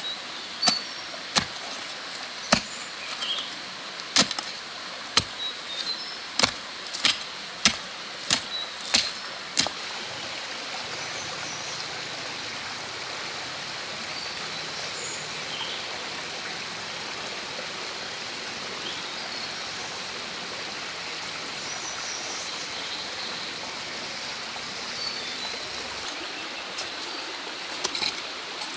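Wooden-handled hand hoe chopping into loose soil: about a dozen sharp strikes over the first ten seconds. After that a steady rushing noise, like running water, with a few faint high chirps. A couple of lighter strikes come near the end.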